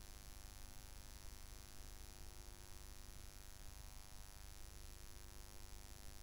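Faint, steady electrical mains hum with a buzz of many even overtones and light hiss, unchanging throughout; no programme sound.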